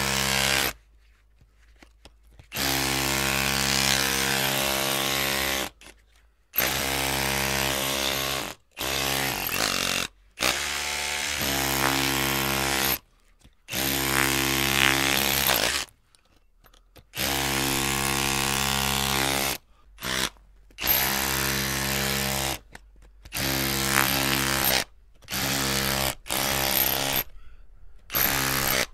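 Electric drill motor running in bursts of one to three seconds, the trigger pulled and released about a dozen times, with a steady whine at full speed and short silent gaps between runs.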